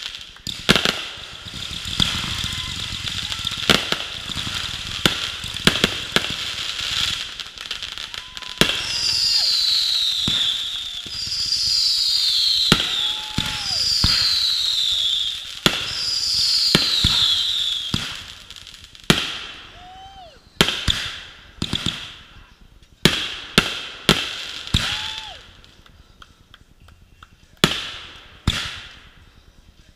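Fireworks going off: a quick run of launch thumps and overhead bangs with crackling, then four falling whistles in the middle. Near the end, single bangs come a second or two apart.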